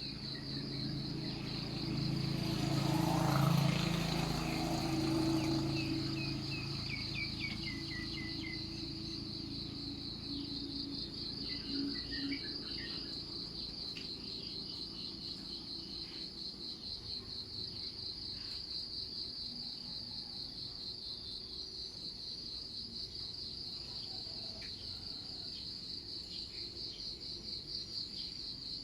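Insects trilling in a steady, rapidly pulsing chorus, with a bird calling a quick descending run of notes about seven seconds in and a few more chirps a little later. A low rumble swells and fades in the first few seconds.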